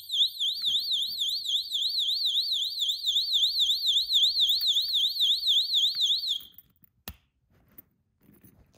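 Personal safety keychain alarm, activated by its pulled pin, sounding a piercing warbling siren whose pitch swings up and down about three times a second. It cuts off about six and a half seconds in, and a faint click follows.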